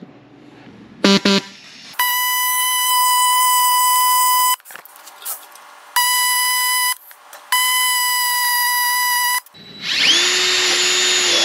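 Cordless drill spinning up and boring a hole through the end of a metal ECU case, running for about two seconds near the end with its pitch rising as it starts and dropping as it stops. Before it come three stretches of a steady high whine that start and stop abruptly.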